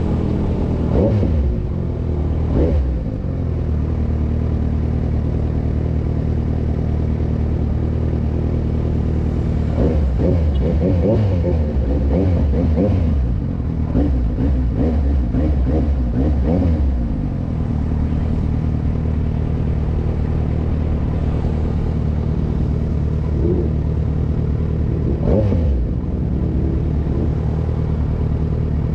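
Kawasaki motorcycle's engine running while riding, heard from on board, holding a steady note on the straights and rising and falling in pitch with throttle and gear changes about two seconds in, through the middle of the stretch and again near the end.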